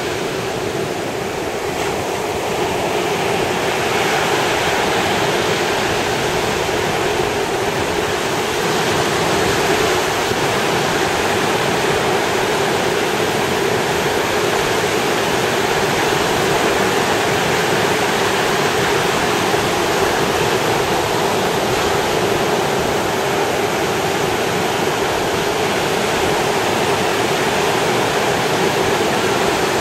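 Ocean surf washing onto the beach: a steady, continuous rush of breaking waves with no separate crashes standing out.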